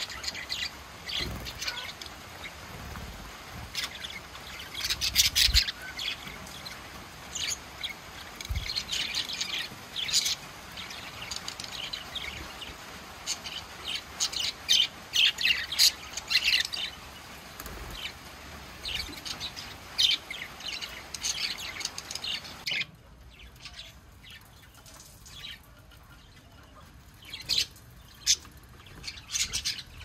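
A flock of budgerigars chirping and chattering, a steady run of short high calls. About three-quarters of the way through, the background hiss drops away and only a few scattered chirps remain.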